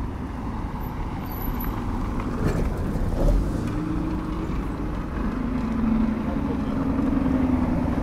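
Cars driving past close by on an unpaved dirt road, engine and tyre noise over a low rumble. A steady engine hum comes in about halfway through.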